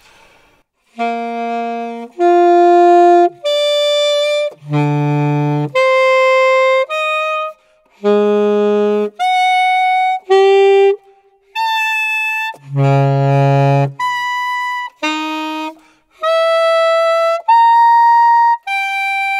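Alto saxophone playing a series of about sixteen separate notes, each held for about a second, leaping back and forth between the low register and the high and altissimo register. The series is built to alternate the horn's flat and sharp notes as an intonation exercise.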